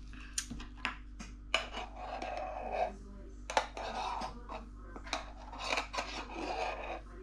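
Frothed milk being poured and worked out of a metal milk-frother jug into a ceramic mug: repeated sharp clinks with stretches of scraping in between.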